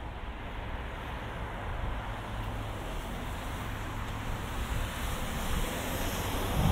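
Road traffic passing: a steady hiss of tyres and engines that grows louder near the end as a vehicle comes close.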